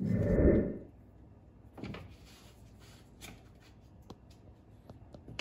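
Handling noises as a fishfinder mount is fitted against a boat console: a loud, short rubbing knock at the start, then a single knock, light rustling and a few small clicks.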